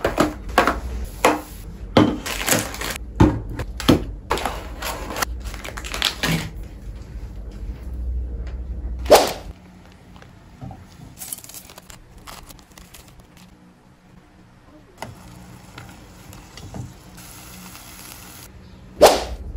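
Knocks, taps and clatter of packaged food and drinks being handled and set down on a table, busy for the first nine seconds, with a loud thump about nine seconds in, then sparser, quieter taps and another thump near the end.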